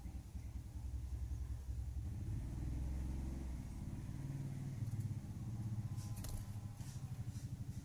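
A steady low motor rumble, pulsing slightly, with a few faint sharp clicks about six to seven seconds in.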